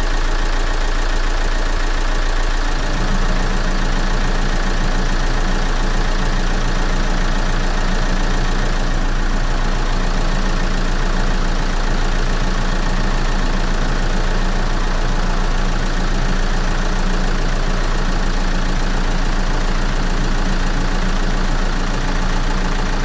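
Vauxhall Vectra 1.9 CDTi four-cylinder diesel engine idling steadily, with its new overrunning alternator pulley fitted. About three seconds in, a deeper steady hum joins as electrical load is switched on.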